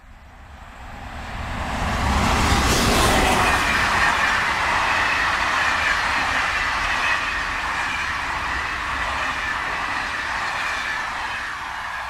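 Passenger train passing: rolling wheel and rail noise swells to a peak about three seconds in, with a steady high whine over it, then slowly fades away.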